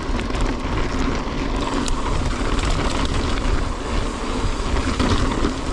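Wind buffeting an action camera's microphone while a mountain bike is being ridden, making a steady, rumbling rush with no clear rhythm or pitch.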